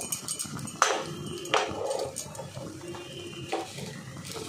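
Dried red chillies sizzling in hot oil in a small pan for a tempering, with a steady sizzle broken by sharp crackles about a second in and again a little later.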